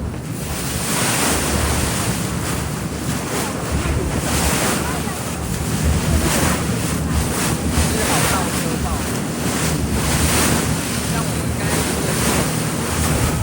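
Wind buffeting the microphone over the rush and splash of sea water along a moving tour boat, with the boat's engine running as a steady low hum underneath.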